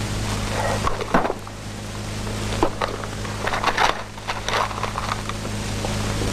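Light knocks, clicks and rustles of a briefcase being set down and objects handled on a bedside dresser, over a steady low hum.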